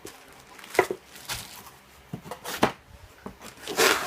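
Cardboard box and packaging being handled during an unboxing: a few sharp knocks and taps, then a brief rustling scrape near the end.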